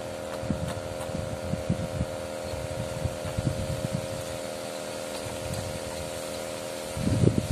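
A steady motor hum of several held tones, with irregular low wind rumble on the microphone that grows louder near the end.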